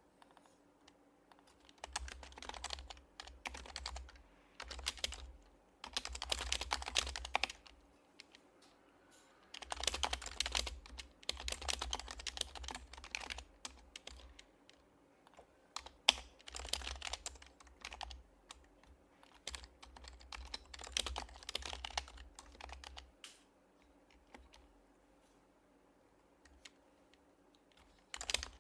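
Typing on an HHKB Professional Hybrid Type-S keyboard, its silenced Topre switches giving soft, muted keystrokes. The typing comes in bursts with pauses of a second or a few seconds between them, and there is one sharper click about halfway through.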